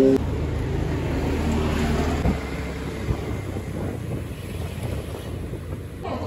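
A motor engine running steadily, with wind rushing over the microphone and a couple of short knocks midway.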